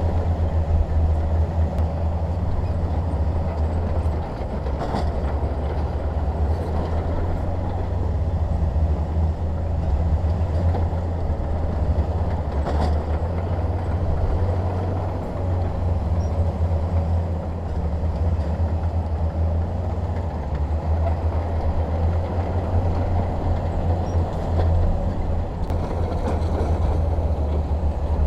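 Bulldozer's diesel engine running steadily with a deep, even rumble, with a couple of faint sharp knocks along the way.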